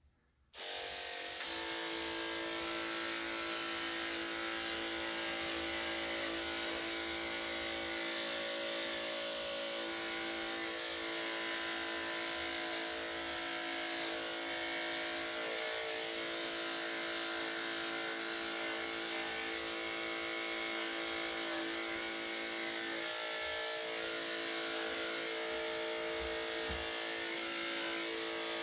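Electric dog grooming clippers switch on about half a second in and run with a steady electric hum.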